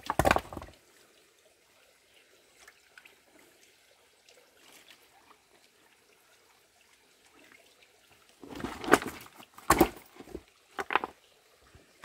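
Hands splashing in a shallow trickle of creek water and shifting stones while searching for crabs. A faint trickle runs for most of the time, with a burst of knocks and splashes at the start and a cluster of them about nine to eleven seconds in.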